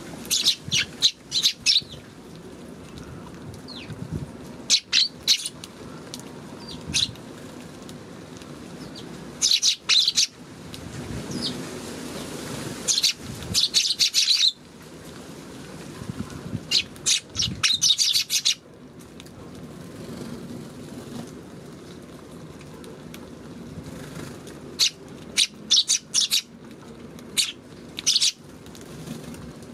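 A flock of Eurasian tree sparrows chirping: clusters of quick, high, sharp chirps lasting a second or two, with quieter gaps of a few seconds between them.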